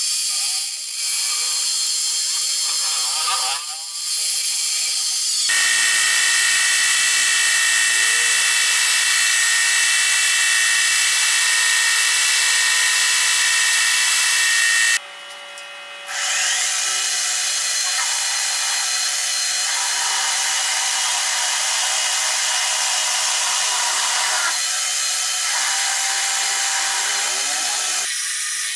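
Metal lathe running, turning a spinning round metal bar with a turning tool, with a steady high whine and hiss from the cut and the machine. The sound drops out briefly twice in the first few seconds and for about a second midway.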